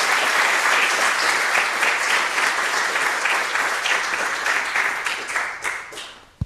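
Audience applauding: a dense patter of clapping that thins to a few last claps and dies away near the end.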